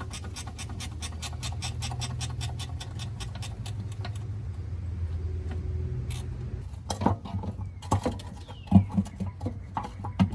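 Hand ratchet wrench clicking rapidly, about seven clicks a second for some four seconds, as a bolt is turned. Then a few irregular metal clanks and knocks.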